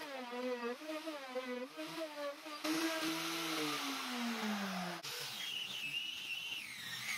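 Power-tool spindle milling an aluminium block, its motor tone wavering in pitch as it cuts. About two and a half seconds in, a harsher cutting hiss joins and the motor pitch sinks steadily. Near five seconds the sound switches to the higher, wavering whine of a rotary sanding pad on the aluminium.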